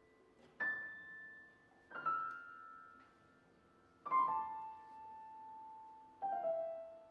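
Piano playing four slow chords, each struck separately and left to ring and die away, the top note stepping lower with each chord.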